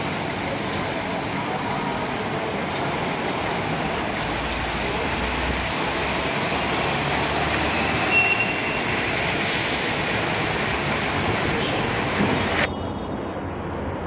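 Single-deck bus running past at close range on a wet street, its engine and tyre noise under a steady high-pitched whine. The sound swells as the bus passes. Near the end it cuts suddenly to quieter street sound.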